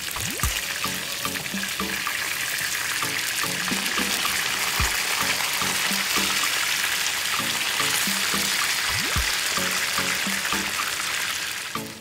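Yellowfin tuna steaks frying in hot oil in a pan: a loud, steady sizzle that fades near the end.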